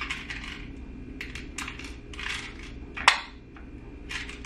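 Hard plastic toy parts being handled: tiny Polly Pocket figurines clicking and clattering against a plastic compact playset as they are pushed into place, with one sharper click about three seconds in.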